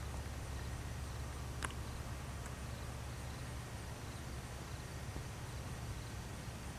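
Distant Cessna 150M's four-cylinder Continental O-200 engine and propeller turning at low taxi power, a steady low drone. A single short, sharp sound comes about a second and a half in.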